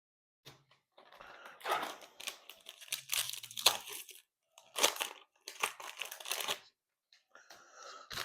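Foil wrapper of a Panini Prizm football card pack being torn open and crinkled, in several bursts of crackling.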